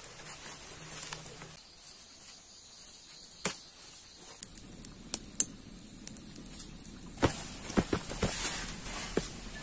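Hands rustling and breaking leafy undergrowth, with scattered sharp snaps and crackles and a quicker run of knocks and crackles near the end.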